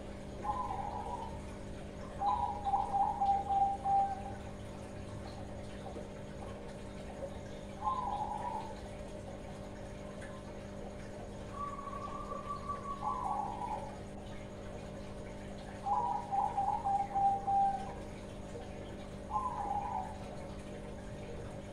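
Young Bangkok-type zebra dove (perkutut) cooing: six short phrases of quick, pulsed coos a few seconds apart, a young bird starting to sing freely. A steady low hum runs underneath.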